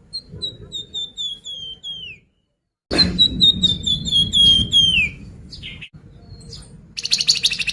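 Flamboyan songbird singing: two phrases of quick repeated whistled notes, each sinking slowly in pitch and ending in a downward slide, followed near the end by a short rapid buzzy chatter.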